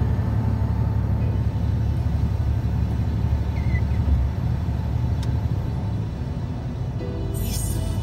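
Steady low rumble of a heavy goods vehicle's engine and tyres on the road, heard from inside the cab while driving at speed. Music comes back in near the end.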